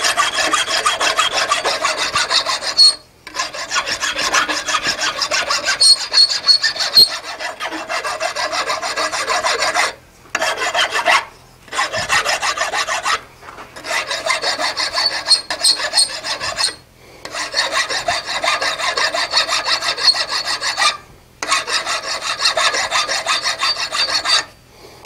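Hand file rasping across the hot end of an S7 tool-steel punch held in a vise, hot filing to square the end and shape the outside profile. Rapid back-and-forth strokes come in runs of a few seconds, broken by short pauses.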